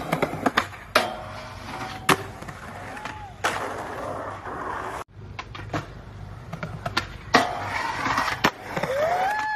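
Skateboard wheels rolling on concrete, broken by several sharp clacks of the board. The rolling cuts off suddenly about five seconds in and picks up again.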